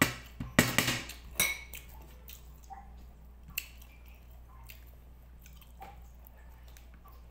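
Metal spoon clinking and scraping against a plate of rice: a quick cluster of sharp clinks in the first second and a half, then a few faint taps.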